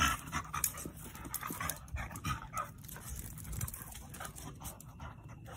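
Dogs panting and scuffling during rough play, with a jumble of short, irregular sounds.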